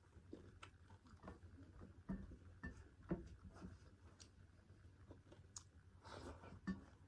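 Faint, irregular chewing and mouth clicks while eating pork curry with rice, one or two soft clicks a second.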